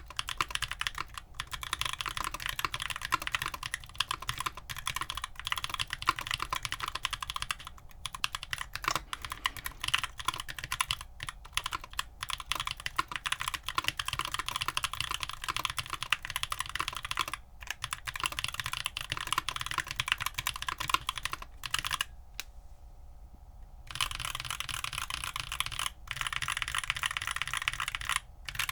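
Continuous typing on a mechanical keyboard with stock (unlubed) Keebfront Doom tactile switches, which have long-pole POM stems, nylon bottom housings, HDPE top housings and two-stage long springs. A steady run of poppy keystrokes breaks off for about two seconds roughly three-quarters of the way through.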